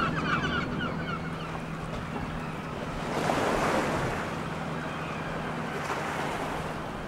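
Water washing against a shore, swelling about three seconds in and again near six seconds. Birds call in the first second or so, and a steady low hum runs underneath.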